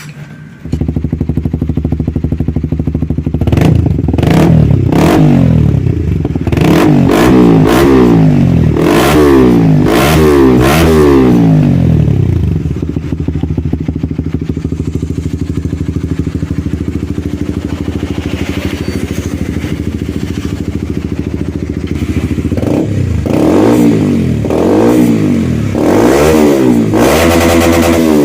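Honda CBR150R's single-cylinder engine running through an aftermarket Akrapovic-style racing exhaust, revved in a run of quick throttle blips, settling to a steady idle, then blipped again near the end.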